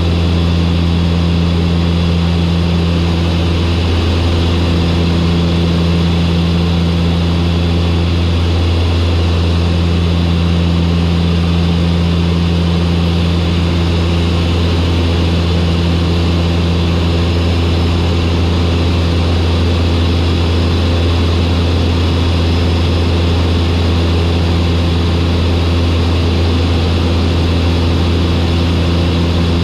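Turboprop aircraft's engines and propellers droning steadily on final approach, a deep constant hum with a slightly wavering tone above it.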